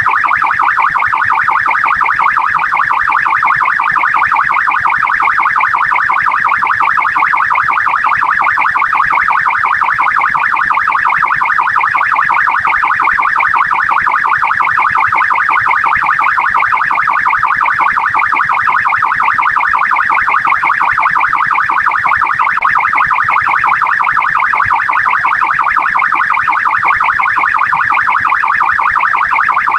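Australian police car siren sounding continuously, its pitch sweeping quickly up and down in a fast, unbroken warble.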